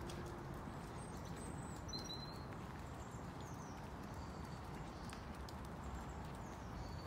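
Footsteps on a tarmac path over a steady low outdoor rumble, with faint bird chirps now and then.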